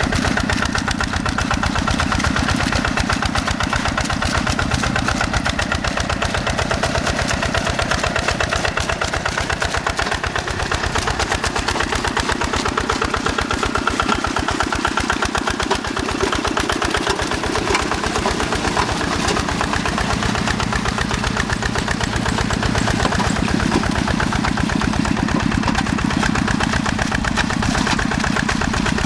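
Yanmar diesel engine of a Quick G1000 hand tractor running steadily under load as the tractor plows a flooded rice paddy, with a fast, even engine beat.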